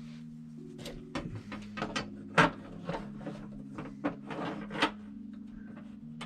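Irregular sharp clicks and knocks of hand tools and hardware being handled against a wall, the loudest about two and a half seconds in, over soft background music.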